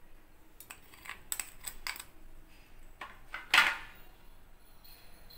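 Light clicks and knocks of small kitchen containers against a steel mixing bowl as salt is tipped in from a small plastic bowl, with one louder, longer scrape about three and a half seconds in.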